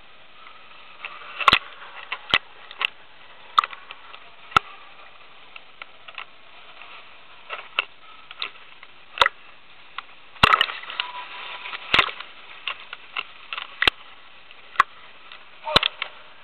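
Choppy pool water splashing and slapping at the surface, heard as irregular sharp clicks and knocks over a steady hiss.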